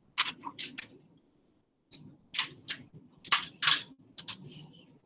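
A series of short, sharp clicks and taps in irregular clusters: four quick ones in the first second, a brief gap, then several more over the next few seconds.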